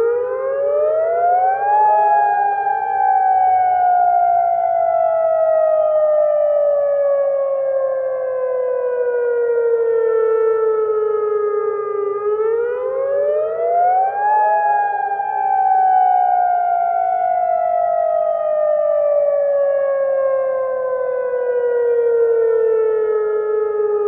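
Emergency alert siren wailing loudly. Its pitch rises quickly over about two seconds, then falls slowly for about ten, twice.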